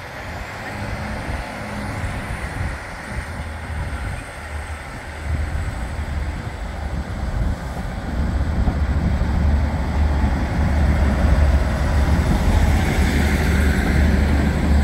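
Class 156 Super Sprinter diesel multiple unit running past at close range, its underfloor diesel engine rumbling deep and growing steadily louder as the train draws alongside.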